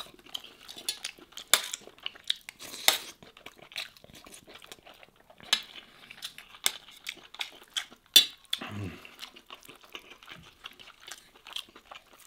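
Metal spoon clinking and scraping against a metal serving tray heaped with rice and lamb: a scattered series of sharp clicks, a few louder than the rest, among the softer sounds of hands pulling meat apart.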